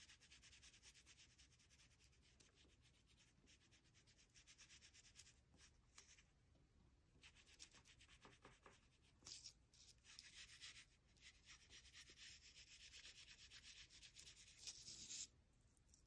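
Faint scratchy rubbing of a Cray-Pas oil pastel stick stroked quickly back and forth across a cardboard cutout, with a couple of short pauses, stopping about a second before the end.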